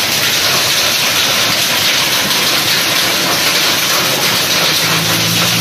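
Heavy rain and hail pelting a concrete yard, a loud steady hiss.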